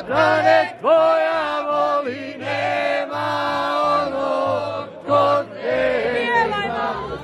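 A group of men singing a folk song together, their phrases starting with upward pitch slides, over a low bass accompaniment that changes notes about twice a second.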